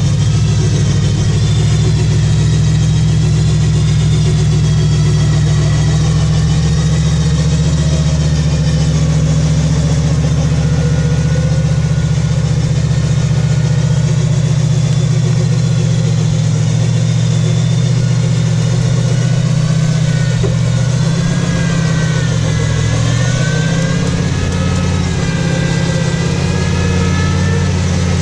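Jeep Grand Cherokee engine running at low revs as the lifted 4x4 crawls through a deep muddy rut, steady throughout with a faint wavering whine over it.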